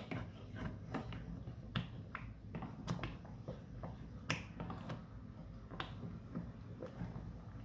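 Plastic spoon stirring a thick sauce in a metal pot, giving irregular sharp clicks and taps, several a second, as it scrapes the pot and works the thickened liquid.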